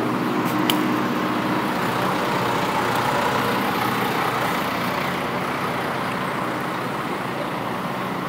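Motor vehicle traffic running close by: a steady engine hum for the first couple of seconds, then a swell of engine and road noise that builds and fades in the middle, as of a heavy vehicle passing. A single click comes under a second in.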